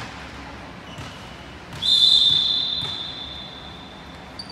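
Volleyball referee's whistle: one long, steady, high-pitched blast starting about two seconds in and dying away over a couple of seconds in the hall's echo.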